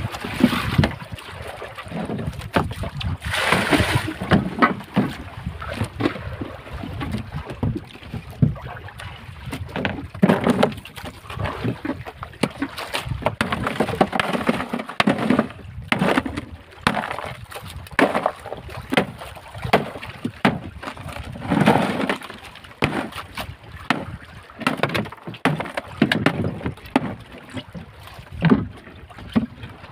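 Block ice being broken up with a hand-held club in a plastic basin: irregular knocks and crunches coming every second or so.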